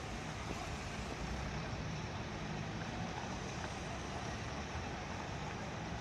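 Steady street traffic noise, with the low rumble of vehicle engines running close by.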